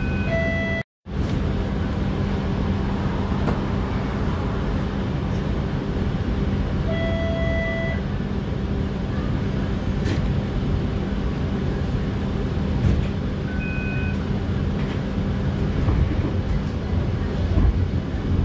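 Interior of a TTC streetcar in motion: a steady hum of motors, wheels and rails. Short electronic beeps sound near the start, about 7 seconds in and about 14 seconds in. The sound cuts out completely for a moment about a second in.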